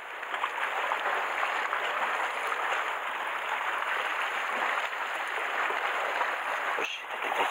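Sea water washing and splashing against a rocky shore, a steady hiss of surf with a brief break near the end.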